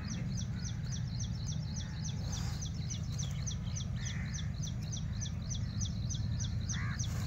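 A small bird calling in a fast, even series of short, high, falling chirps, about four a second, over a steady low rumble.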